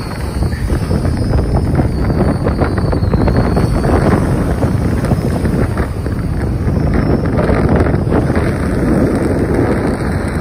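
Strong wind buffeting the microphone, a loud irregular rumble, with the sea washing at the shoreline beneath it.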